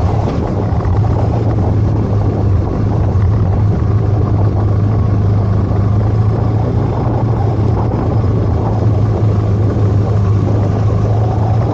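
Motorcycle engine running steadily while riding, heard from on the bike, with wind and road noise. A steady low drone with no clear gear changes.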